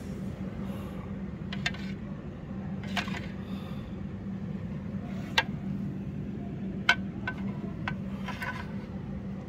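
Metal spoon clinking a handful of times against a ceramic soup bowl while scooping soup, sharp isolated clicks over a steady low hum.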